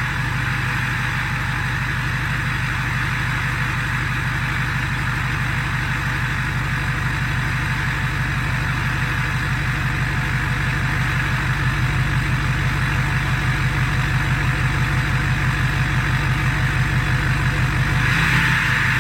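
2015 Ford F250's 6.7 Powerstroke V8 turbo-diesel, fitted with a Stage 1 KC Whistler turbo, idling steadily through a 4-inch DPF-back exhaust, with turbo hiss above the diesel's pulsing idle. It gets a little louder in the second half, and a light rev begins near the end.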